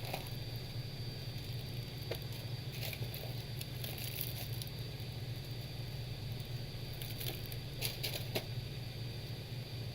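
Steady low hum with scattered light clicks and rustles of small parts and tools being handled at the workbench.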